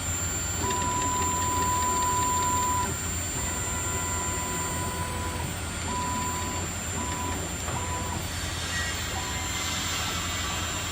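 A steady low machine hum, with a single high steady whine that starts and stops several times: two long runs of about two seconds, three short ones, then a longer run near the end.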